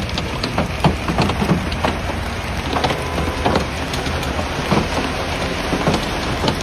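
Heavy rain pelting a hard surface: a steady hiss with irregular louder drop impacts several times a second.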